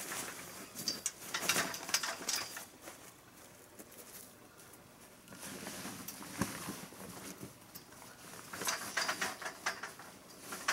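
Carport canvas cover crinkling and rustling as it is handled and pulled over the frame pole, in two spells of handling with a quieter stretch in between.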